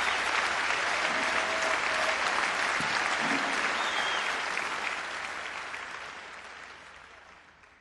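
Concert audience applauding, fading out gradually over the last few seconds as the live recording ends.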